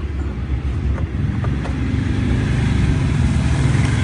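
Steady low rumble of a running motor-vehicle engine, with a couple of faint clicks about a second in from plastic wiring connectors being handled.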